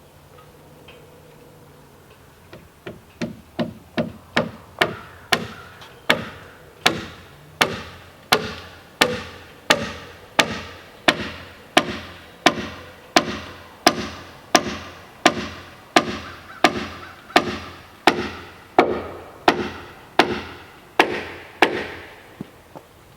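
Hand tool striking wood over and over at a steady rhythm of about one and a half blows a second, lighter at first and then firm, stopping just before the end.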